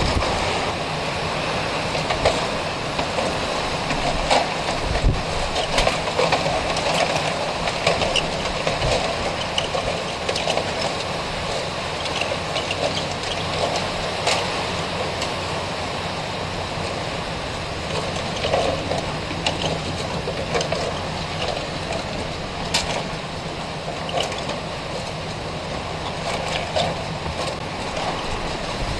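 Strong storm wind blowing steadily over the microphone, with a few sharp knocks from a loose metal window awning that the gusts are working loose.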